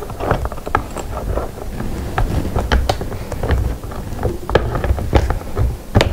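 A screw being turned with a small hand wrench to fasten a chair armrest: irregular small metallic clicks and knocks over a low rumble of handling noise.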